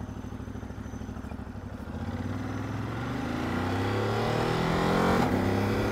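Ducati DesertX's V-twin idling, then pulling away from about two seconds in, the engine note rising as the bike accelerates, with a brief break in the note about five seconds in.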